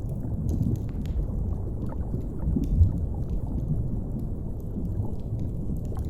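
A deep, steady underwater rumble, with a fire crackling over it in scattered faint pops.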